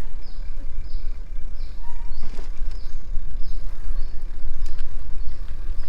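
Wind buffeting the microphone as a group rides bicycles along a trail: a heavy, uneven rumble. Behind it, a faint high falling note repeats about every half second.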